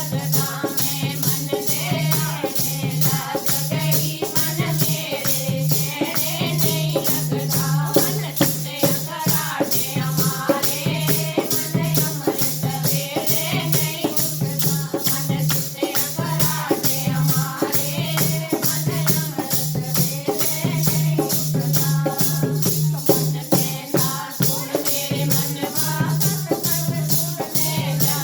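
Devotional kirtan music: a wavering melody over a pulsing low tone, kept in time by an even, fast beat of rattling percussion strokes.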